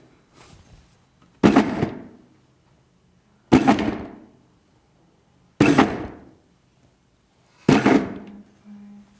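Ozen HB300RE vacuum blender working whole limes in short pulses: four bursts about two seconds apart, each starting with a sudden thud and dying away within a second, over a faint low hum.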